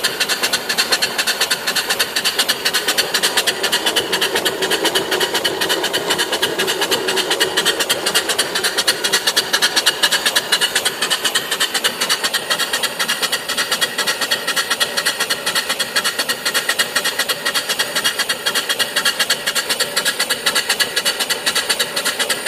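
Live steam mill engine (single-cylinder box bed engine, 3-inch bore by 4-inch stroke, with a flyball governor) running steadily under steam, its exhaust beating in a fast, even rhythm.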